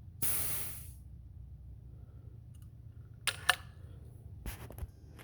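A short, loud hiss of air from a compression tester as its gauge is bled after a reading, then a few sharp clicks and knocks as the tester is handled.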